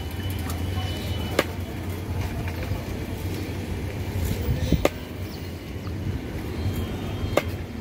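A heavy knife chopping through katla fish steaks onto a wooden block: three sharp chops, about a second and a half in, near five seconds, and near the end, over a steady low rumble.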